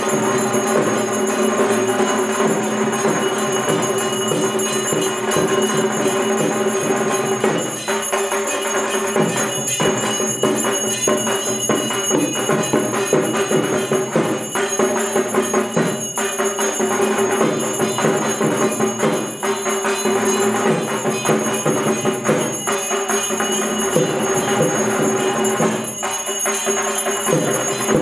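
Continuous bell-and-percussion music of a Durga Puja aarti: steady jingling and ringing over a held tone, with frequent short strikes.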